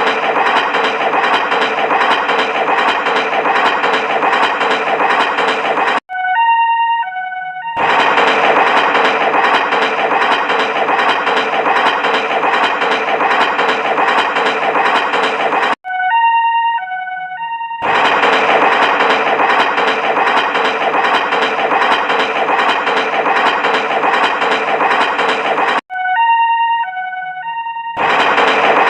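A loud electronic siren-like sound repeating in a loop: about eight seconds of steady wailing, then a short two-note chime of about two seconds. The cycle comes round three times, each part cutting off abruptly.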